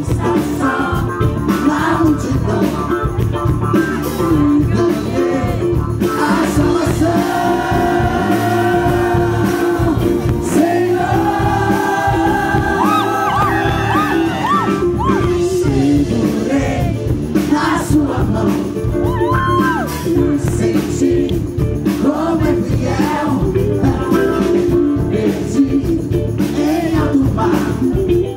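A Christian pop-rock band playing live through a loud PA, with a male lead vocalist singing over drums and backing instruments; several long held notes are sung.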